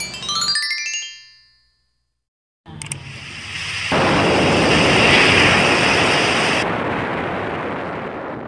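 Sound effects of an animated subscribe button. A sparkling cascade of sliding chime tones fades out in the first second and a half. After a short silence, a hiss starts and jumps into a loud, explosion-like rush about four seconds in, which slowly dies away.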